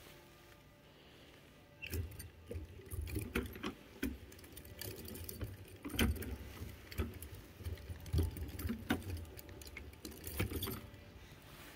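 Metal link chain of a wooden chain-drive model clinking and rattling over its studded sprocket wheels, an irregular run of clinks and knocks starting about two seconds in.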